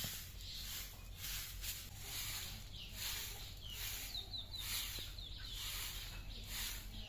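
Long soft grass broom sweeping a packed-earth and cement floor, about two swishing strokes a second. A bird chirps a few times about four seconds in.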